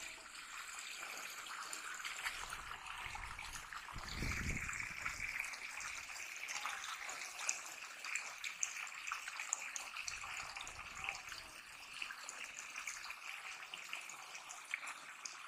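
Shallow water splashing and trickling as a fine-mesh net is dragged through it by people wading, with many small crackling splashes. A brief low rumble comes about four seconds in.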